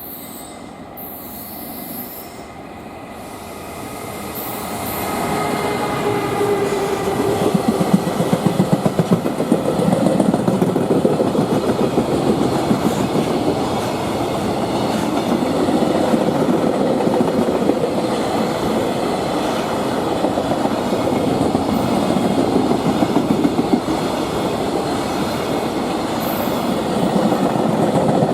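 Freight train of container wagons passing at speed, growing louder over the first few seconds as it approaches, then a steady, fast clatter of wagon wheels over the rail joints.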